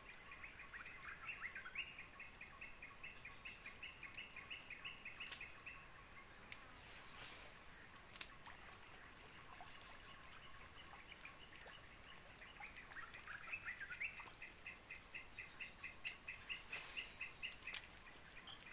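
Steady high-pitched insect drone of tropical forest, with a bird giving two long runs of rapid repeated chirps and a few faint clicks.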